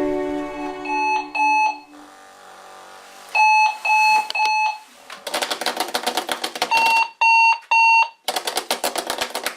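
Sonic Alert Sonic Bomb alarm clock going off: short electronic beeps in groups of two and three, alternating twice with longer stretches of a harsh, rapid buzz.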